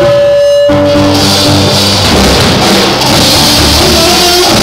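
Live cello rock: amplified cellos playing loudly with a drum kit. A single held cello note opens, then the full band comes in under a second in.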